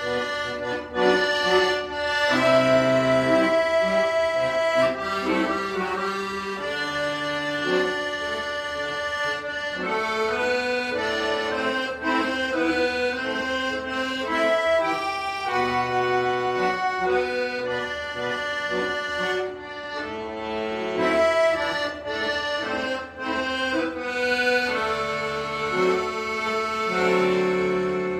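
An accordion playing a melody over low bass notes and chords.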